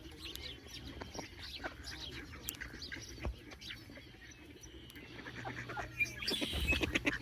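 Several wild birds chirping and calling in short, overlapping notes, with a denser run of quick calls near the end.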